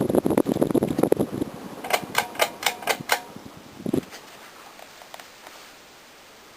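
NuTone Verandah II ceiling fan running, with fluttering air noise for the first second and a half. It is followed by a quick run of six sharp clicks, a single thump about four seconds in, and then only faint hiss.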